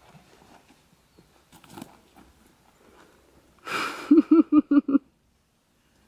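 Soft footfalls and rustling on a forest path, then a breathy burst and a quick run of about six short voiced 'ha' pulses, a person laughing, cut off abruptly.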